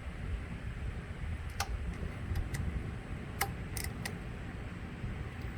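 Scattered light metallic clicks and taps from hand tools tightening the bolts of a motorcycle's engine side case, about six irregular clicks over a steady low rumble.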